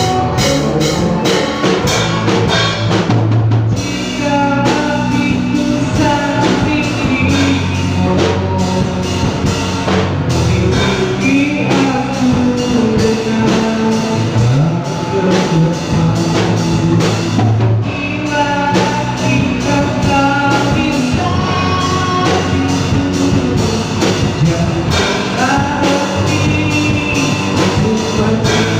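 Rock song with drum kit and singing, played loud and steady.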